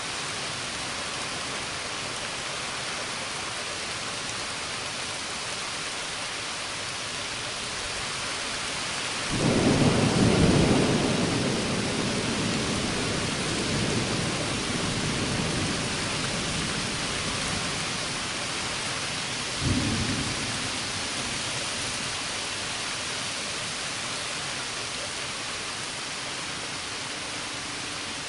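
Thunderstorm: steady rain hissing, with a sudden loud thunderclap about a third of the way in that rumbles on and fades over several seconds, and a second, shorter clap about two-thirds of the way through.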